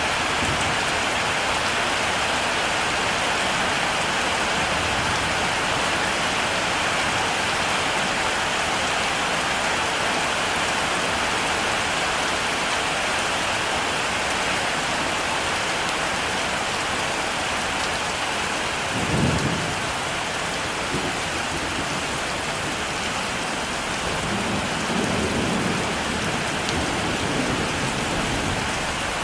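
Heavy rain falling in a steady hiss. Thunder sounds as a short low clap about two-thirds of the way in, followed a few seconds later by a softer low rumble.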